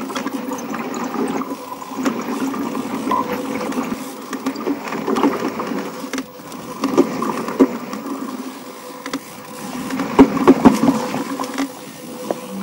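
Mountain bike rattling and clicking as it rides down a rough dirt trail, with a steady rumble underneath and frequent sharp knocks.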